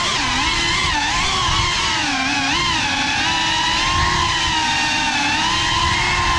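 GEPRC Cinelog 35 ducted FPV cinewhoop on a 6S battery: its motors and props whine continuously, the pitch sliding up and down as the throttle changes, over a rough low rush of prop wash.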